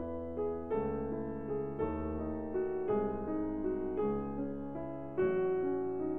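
Background piano music, with sustained chords changing about once a second.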